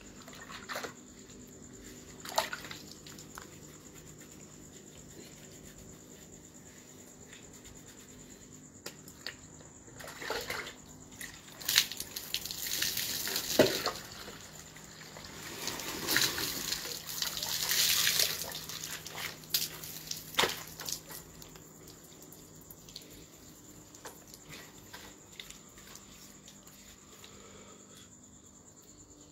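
Water scooped from a plastic bucket with a metal dipper and poured out, splashing, in two spells: about twelve seconds in and again around sixteen to nineteen seconds in. A few knocks of the dipper come between the pours.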